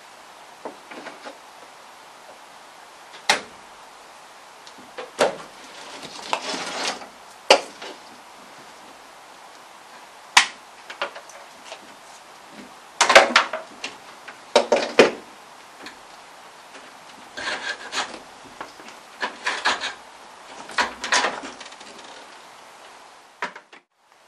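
Old wiring being pulled free of a van's rusty roof rail by hand, making irregular scrapes, rubs and sharp knocks as the wires and their tape drag against the metal.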